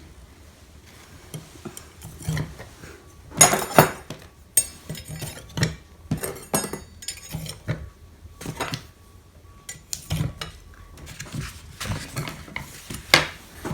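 Metal kitchen knives from a new knife set clinking and knocking against each other and against hard surfaces as they are handled and set down. The clinks come irregularly, loudest a little under four seconds in and again near the end.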